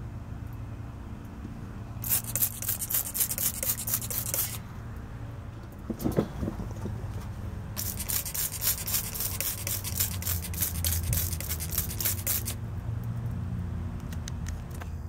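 Hand trigger spray bottle of Fluid Film being pumped, a fast run of squirts onto the truck's undercarriage. One short run comes about two seconds in and a longer one from about eight to twelve seconds, with a single low knock between them.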